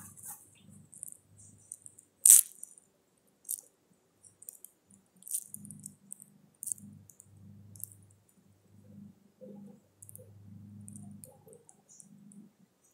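Sparse faint clicks and crackles with patches of low hum, and one sharp click about two seconds in.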